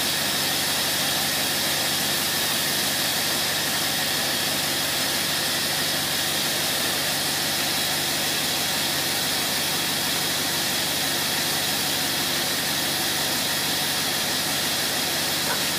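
Test engine running steadily at an even speed on a used Rochester marine carburetor, a good core that needs a rebuild.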